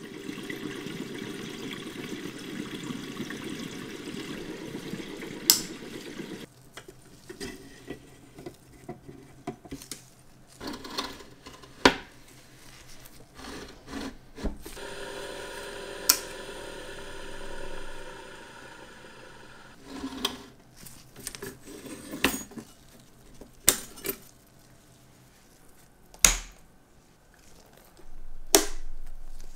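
Vintage Elma watch-cleaning machine running, its parts basket spinning in a jar of isopropyl alcohol, stopping about six seconds in. Then sharp clicks and knocks of the basket head and glass jars being handled, a second spell of steady whirring in the middle, and a louder noise starting about a second and a half before the end.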